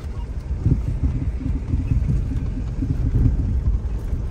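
Uneven low rumble of a Kia Picanto rolling slowly over a gravel dirt road, tyres and suspension heard from inside the cabin.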